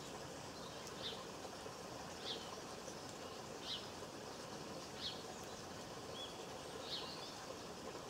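Male house sparrow chirping: five short single chirps in a row, roughly one every second and a half, over a steady background hiss.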